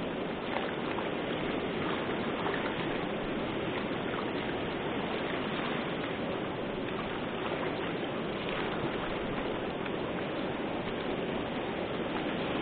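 Steady rush of water pouring over a low dam ledge and churning in turbulent water below it.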